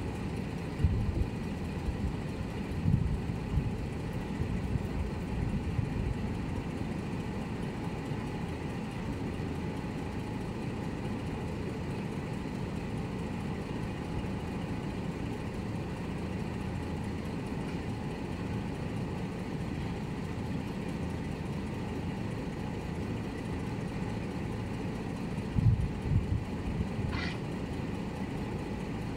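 A steady low rumble like an idling vehicle engine, with low thumps near the start and again about 26 seconds in. A short high chirp sounds about 27 seconds in.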